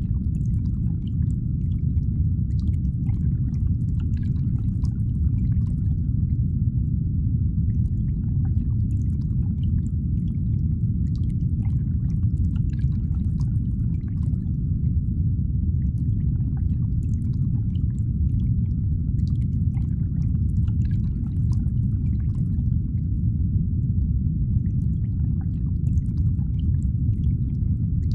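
Steady low rumbling ambience with a faint high hum and scattered faint drip-like ticks over it.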